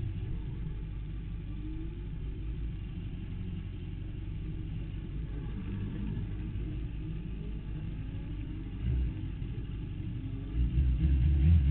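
Sport motorcycle engine ticking over with a low, steady rumble, picked up by the onboard camera. Near the end it gets louder again.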